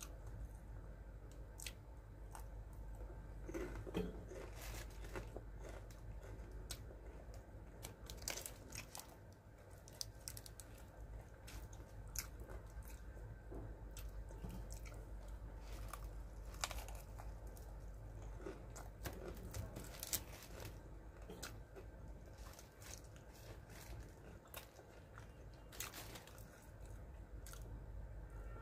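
Crispy KFC fried chicken being torn apart and eaten close to the microphone: irregular crunches of the breading and chewing.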